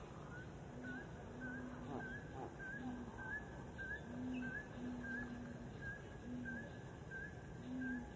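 Animal calls: short chirps with a small upward flick, repeated about twice a second, alongside low drawn-out tones of uneven length that come and go.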